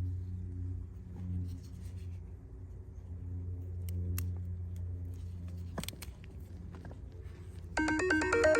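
A steady low machine hum with a few faint clicks over it, stopping about six seconds in. Near the end a mobile phone's melodic ringtone starts, loud and in stepped notes.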